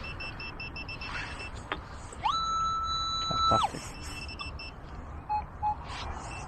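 Metal detector giving a target signal as the coil passes over buried metal: an electronic tone that rises quickly to a steady pitch, holds for about a second and a half, then drops away, followed near the end by two short lower beeps.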